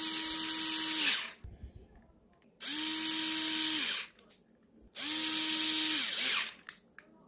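Cordless electric screwdriver driving small T10 Torx screws into a steering-wheel button assembly. There are three short runs of motor whine, each spinning up, running about a second and a half, then winding down.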